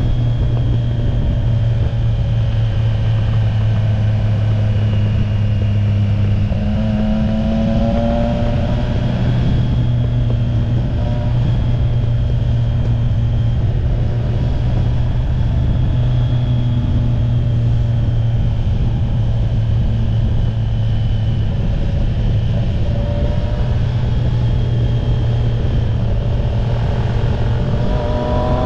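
Triumph Street Triple RS's three-cylinder engine running at steady road speed, with wind rushing over the microphone. The revs climb briefly about a quarter of the way in and rise again near the end.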